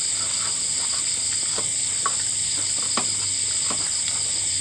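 Steady high-pitched insect chorus with a few small scattered clicks and taps.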